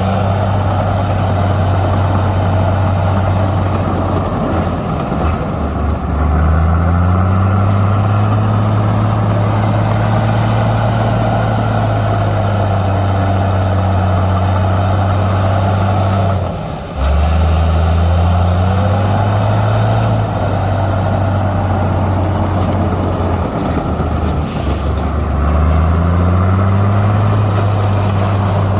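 Heavy diesel engine of earthmoving machinery working under load, with a mid-range mechanical clatter underneath. Its pitch sags and then climbs back up three times as the engine is revved again, with a brief sharp dip in loudness about halfway through.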